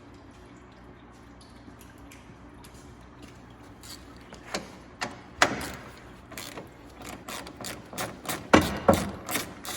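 Metal hand tools at work: a run of irregular sharp clicks and clanks, several a second, beginning about halfway through, typical of a socket ratchet loosening bolts.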